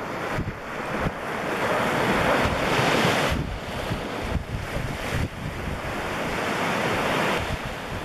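Wind buffeting the microphone over the rushing wash of waves on choppy water, swelling and easing in gusts, loudest a couple of seconds in.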